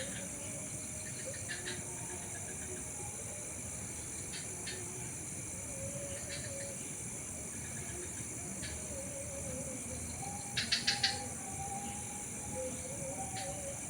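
Night-time garden ambience: a steady, high-pitched insect chorus with faint wavering lower tones underneath. Short chirps come now and then, and a quick run of four louder chirps about two-thirds of the way through is the loudest thing.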